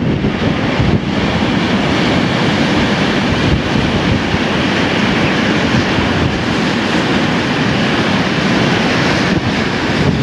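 Heavy storm waves breaking and churning against the rocks of a cove, with strong gale wind blowing across the microphone: a loud, continuous rush of surf and wind.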